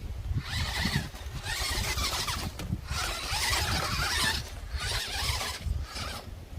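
Electric RC truck's motor whining in several short bursts of throttle, with drivetrain noise, over wind rumbling on the microphone.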